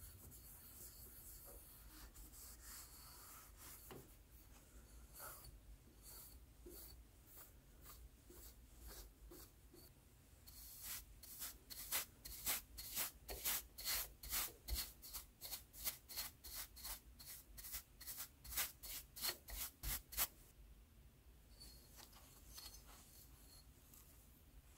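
Rubbing and scrubbing strokes on a graphics card being cleaned. Light, scattered scrubbing at first, then about halfway through a fast run of brisk strokes, about two a second, for roughly ten seconds, before it eases back to light rubbing.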